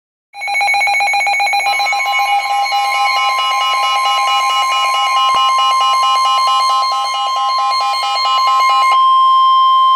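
Emergency alert signal tones: a fast-pulsing electronic alarm, joined about two seconds in by a steady single-pitch warning tone. The pulsing stops about nine seconds in, and the steady tone carries on alone.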